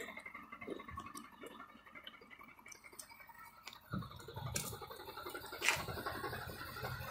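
Ford F650's 6.7 Powerstroke diesel idling faintly, with a few light clicks. The low idle rumble grows louder about four seconds in.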